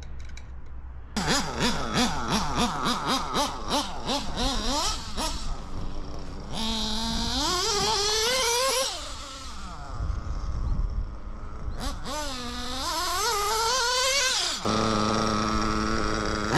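Modded Novarossi P5-based nitro RC buggy engine, blipped in quick throttle revs for a few seconds, then revving up in two long rising sweeps as the buggy drives, and settling to a steady idle near the end. Its needle has just been richened, and it runs too rich.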